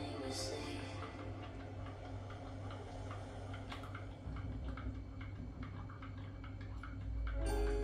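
A spoon stirring coffee in a ceramic mug, clinking lightly and irregularly against the sides. Music comes back in near the end.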